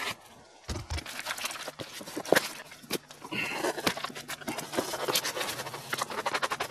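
Cardboard box and paper sheets being handled: crinkling and rustling with irregular knocks and taps, the sharpest knock a little over two seconds in.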